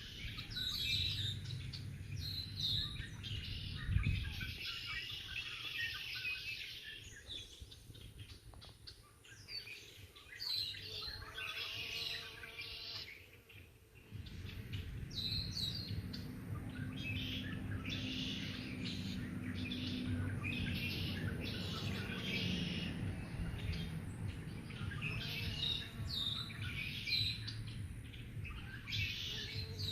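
Several small birds chirping and singing in short repeated phrases, with a low, steady buzz of bumblebees flying near the clover in the second half. There is a low thump about four seconds in.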